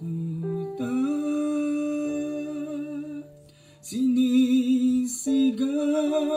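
A man singing a slow Tagalog worship song over soft instrumental backing, holding long notes with vibrato. The voice stops briefly about three and a half seconds in, then the next phrase comes in louder.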